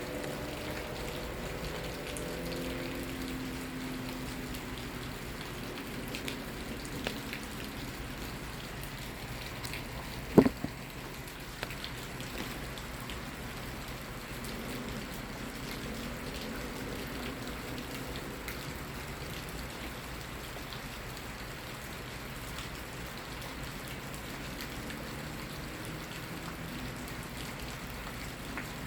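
Steady rain falling, with scattered drops ticking on a surface. A single sharp knock about a third of the way through is the loudest sound, with a few fainter ticks around it.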